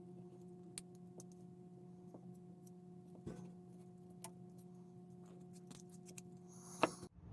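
Scattered light clicks and taps of small plastic model-kit parts being handled, with one louder click near the end, over a steady low electrical hum.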